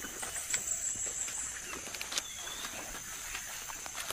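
Steady high-pitched drone of insects, with scattered crackles and snaps of leaves and twigs in the undergrowth.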